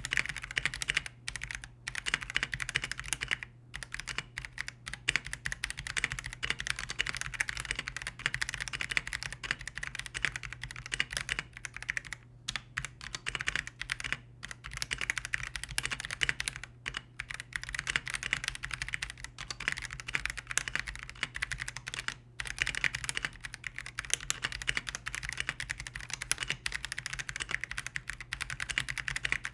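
Typing on an Akko PC75B Plus mechanical keyboard: a fast, continuous run of key clicks with a few short pauses, muted by the board's sound-dampening foam.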